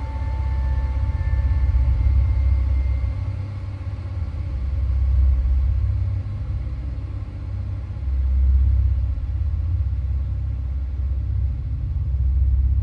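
Wind buffeting the microphone: a low rumble that swells and fades in gusts every few seconds. Faint steady high tones die away in the first few seconds.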